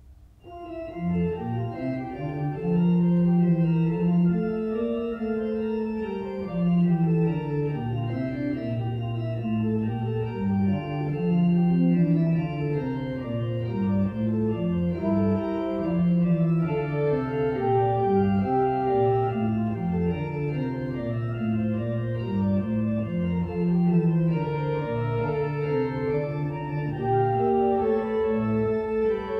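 Church organ starting a slow piece about half a second in: sustained chords with several lines moving beneath and above.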